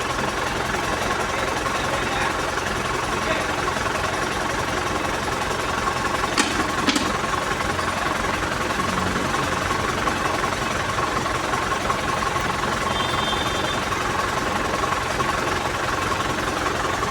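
A machine running steadily with a fast rattle and a constant whine, with two short clicks about six and a half seconds in.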